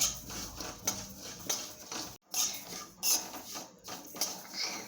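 Ajwain seeds, cloves and crushed garlic being dry-roasted and stirred in a pan, with the stirring utensil scraping and knocking against the pan at irregular intervals.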